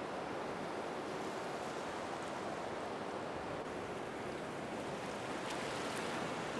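Steady rush of ocean surf, an even wash of waves.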